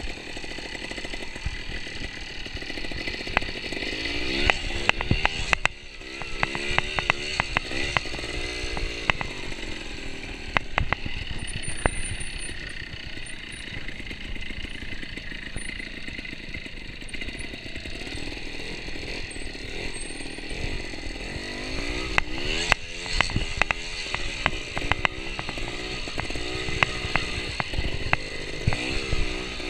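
Trials motorcycle engine, ridden slowly and revved up and down in repeated short blips, with sharp clatter and knocks from the bike over rough ground.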